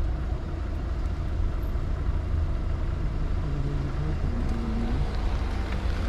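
Car being driven slowly while parking: a steady low rumble of engine and road noise.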